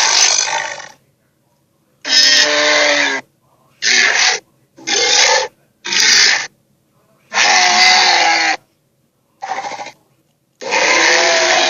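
Torvosaurus sharptooth dinosaur growl and roar sound effects: a string of separate calls, some short and some over a second long, with brief silences between them. The previous call dies away about a second in, then seven more follow, the last one starting near the end.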